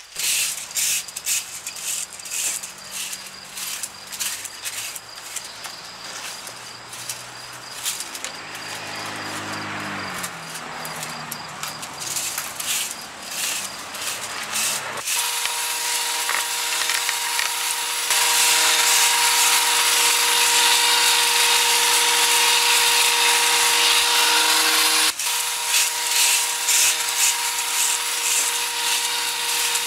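Small two-stroke gas hedge trimmer: for the first half it runs quietly at low revs among scraping and clicking, with a short rev-up about a third of the way in. From about halfway it runs loud and steady at high revs with a high whine, broken off briefly once near the end.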